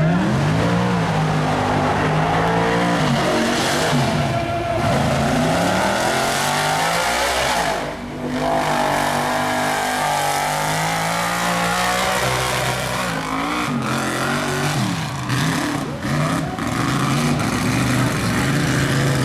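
Mud truck engine revving hard, its pitch climbing and falling again and again, with a brief drop in power about eight seconds in.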